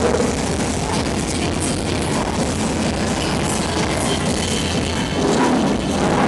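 Loud rock music with a drum kit playing.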